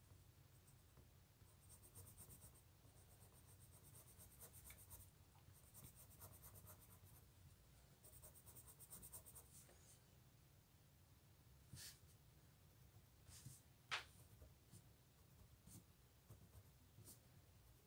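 Faint scratching of a coloured pencil stroking across sketchbook paper as markings are shaded in, with two sharper taps of the pencil on the paper later on.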